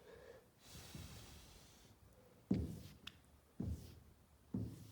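Faint swish of a squeegee wiping sanding water off wet paint, followed by three soft thumps about a second apart.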